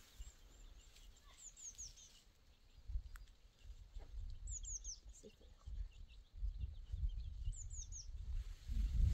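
A small bird singing: a quick phrase of three or four high, falling notes, repeated about every three seconds, over a low rumbling noise that grows louder in the second half.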